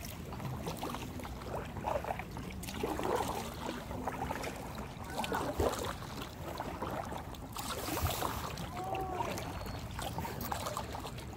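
Kayak paddle strokes splashing and dripping in lake water, in an irregular rhythm over a steady background of water noise.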